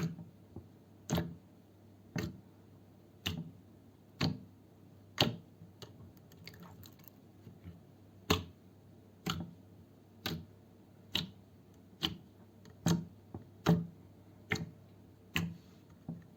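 Slime being squished, making short sharp popping clicks about once a second, with a brief stretch of fainter crackles around six to eight seconds in.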